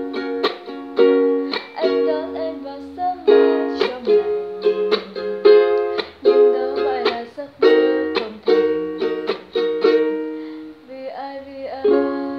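Ukulele strummed in chords, a steady rhythm of strokes with each chord ringing between them, as an instrumental passage without singing.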